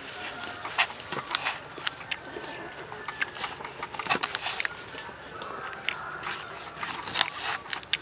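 Large knife slicing boiled pork lung and windpipe on a banana leaf over a wooden table, making irregular sharp clicks and scrapes as the blade cuts through and meets the board.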